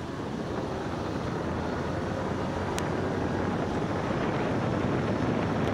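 Steady road and wind noise from a car driving over wet cobblestones in the rain, picked up by a camera mounted outside on the car, growing slightly louder. A single sharp tick about halfway through.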